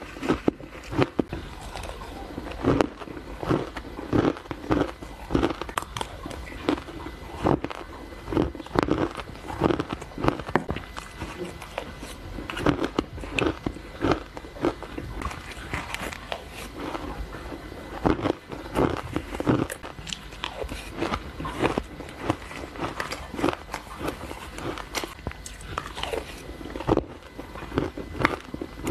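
A person biting and chewing mouthfuls of crushed ice close to a clip-on microphone: a quick, irregular run of sharp crunches.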